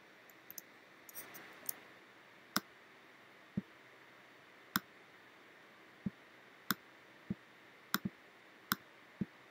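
Quiet, irregular clicks of a computer pointing device, about a dozen over several seconds, as it is pressed and released to draw brush strokes. A soft rustle comes about a second in, over a faint steady hiss.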